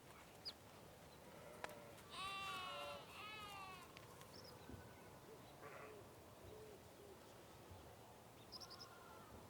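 Sheep bleating: two wavering bleats back to back about two seconds in, then a fainter bleat near the end, with a few short bird chirps over a quiet farmyard background.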